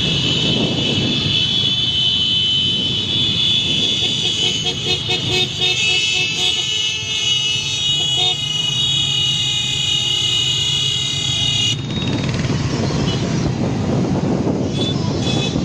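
Vehicle horns honking without a break over the running engines of many motorcycles and wind on the microphone. The horns stop abruptly about twelve seconds in, and the engine and wind noise carries on.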